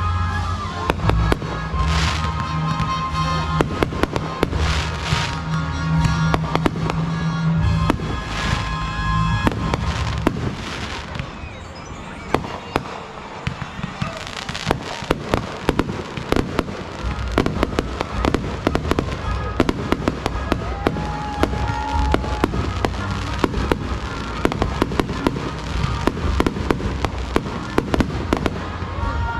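Fireworks display: a dense run of sharp cracks and bangs from bursting shells throughout, over music whose heavy bass is strong for the first ten seconds or so and then drops back.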